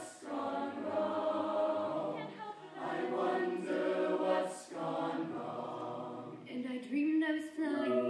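Mixed-voice a cappella choir singing sustained chords in harmony, in several phrases with short breaks between them.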